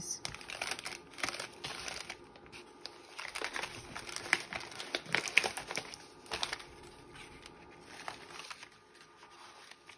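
Paper rustling and crinkling as a glue-backed paper piece is handled and slid into place across a craft mat: irregular scrapes and crackles that thin out over the last few seconds.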